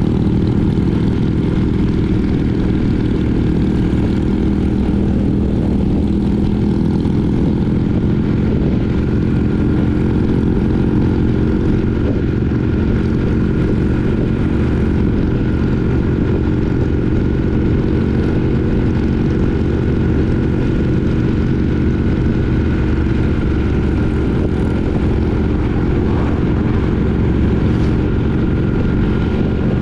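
Triumph Speed Twin 900's parallel-twin engine running steadily while the motorcycle cruises, its note holding even throughout.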